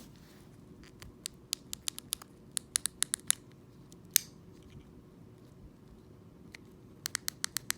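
Small plastic fidget toy worked by hand: quick runs of sharp clicks, a short scrape about four seconds in, then another quick run of clicks near the end.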